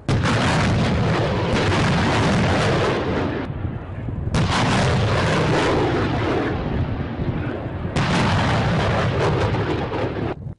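HIMARS rockets launching: the loud rushing noise of rocket motors firing off the launcher. It comes in three long stretches, each starting suddenly, with a short dip about three and a half seconds in.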